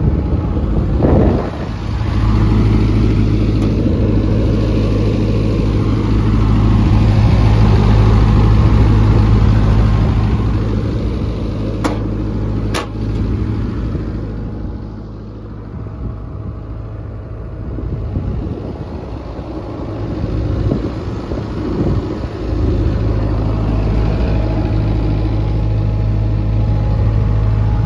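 Isuzu diesel engine of a John Deere 135C excavator running steadily, growing louder and softer in turn. Two sharp clicks come about twelve seconds in.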